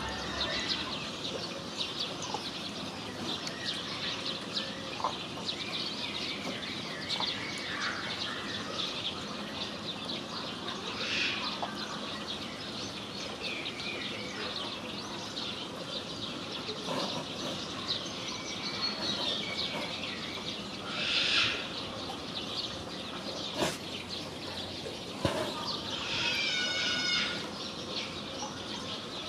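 Many birds chirping and calling steadily, with a couple of sharp knocks about two-thirds of the way through and a louder pitched, repeated call near the end.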